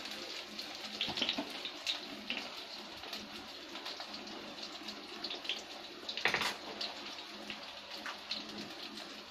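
Gram-flour-coated leaf rolls (rikvach) shallow-frying in oil in a pan: a steady sizzle with many small crackles and a sharper pop a little past six seconds in.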